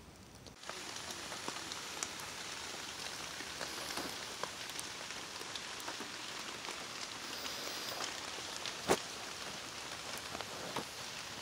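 Wood campfire burning in a rock fire pit: a steady hiss with frequent small crackles, and one louder pop about nine seconds in.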